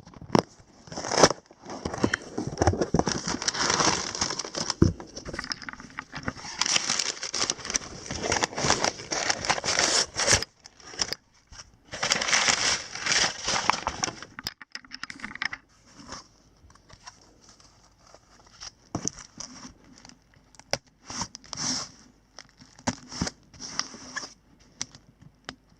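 A small cardboard package being opened by hand: tape and paper tearing, with packing material crinkling and rustling. The handling is dense for about the first fifteen seconds, then turns into scattered rustles and clicks.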